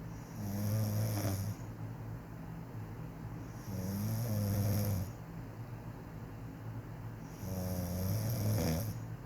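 A woman snoring quietly in her sleep: three snores, about four seconds apart.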